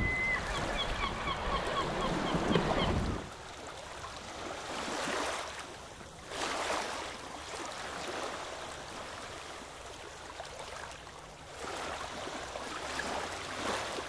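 Sea surf washing over coastal rocks, swelling and easing in surges. Over the first three seconds a bird calls in quick repeated notes, about four a second.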